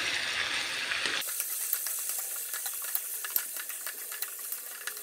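Pork and dried bottle gourd sizzling in a hot pan as they are stirred, with many quick clicks of the utensil against the pan. About a second in the sizzle changes abruptly to a thinner, higher hiss.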